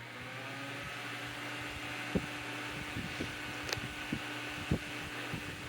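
Holmes Blizzard fan with a C-frame shaded-pole motor, started straight on high: motor hum and blade whoosh, with the pitch rising slightly in the first second as it comes up to speed, then running steadily. A few light clicks sound through it.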